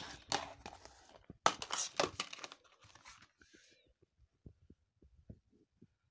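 Plastic Blu-ray case being handled and snapped open: a quick run of clicks and scrapes, loudest about a second and a half to two seconds in, followed by faint soft taps.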